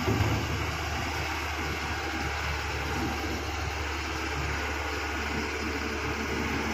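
Diesel engines of a Tata Hitachi excavator and a 10-wheel dump truck running steadily: a low rumble under an even hiss.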